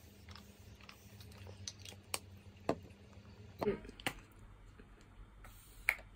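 Faint, scattered clicks and light taps from small objects being handled, over a low steady room hum.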